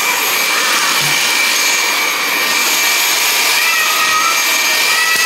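Cordless stick vacuum cleaner running steadily as it is pushed over a wooden floor: a constant high whine over the rush of air.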